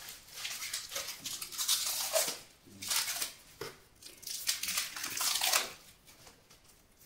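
Protective plastic wrap being pulled and torn off a chrome motorcycle silencer, in several irregular rustling, crinkling bursts.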